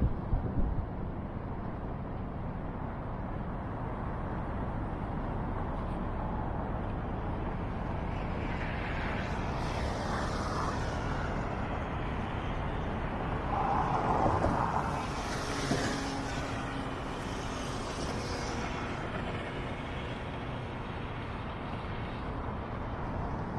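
Road traffic: a steady low rumble, with a vehicle passing closer through the middle, its tyre and engine noise swelling and then fading.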